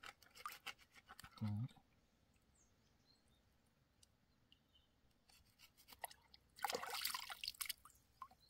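Faint sounds of a fish being handled and cleaned: scattered clicks and scrapes, a brief low hum about one and a half seconds in, and near the end a second-long rush of splashing water.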